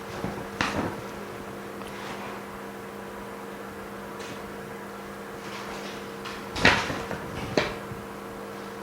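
Laminating machine running through its pressing cycle with a steady low hum, broken by a few sharp knocks: one about half a second in and two close together near the end, the first of those the loudest.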